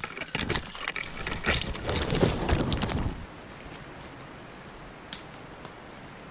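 Conifer branches swishing and twigs crackling as someone forces through dense softwood undergrowth, for about three seconds. Then it cuts to a faint steady hiss of the woods, with a single small click about two seconds later.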